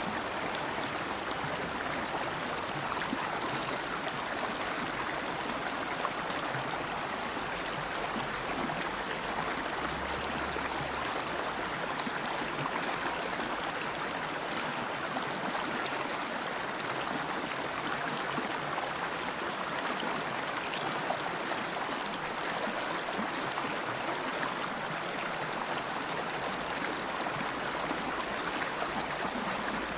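River water flowing steadily over rocks, an even rushing with small gurgles.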